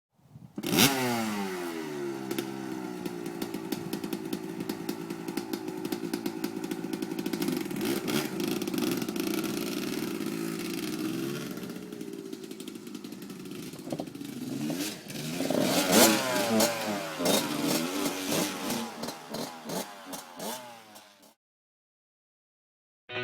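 1989 Suzuki RM250's two-stroke single-cylinder engine running. It comes in suddenly with a quick rev, holds a steady speed for about ten seconds, then is revved up sharply several times before cutting off abruptly near the end.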